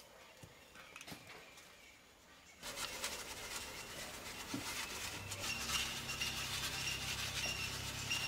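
Flour being sifted through a hand-shaken metal sieve: a rustling patter of flour falling onto a plastic sheet, with small ticks from the sieve, starting about a third of the way in.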